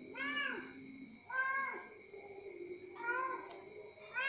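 Orange tabby domestic cat meowing four times, each meow rising then falling in pitch, about a second and a half apart.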